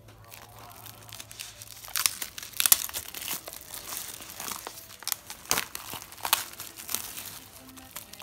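Clear plastic shrink-wrap being torn and peeled off a CD case by hand, crinkling in irregular crackles, loudest about two to three seconds in.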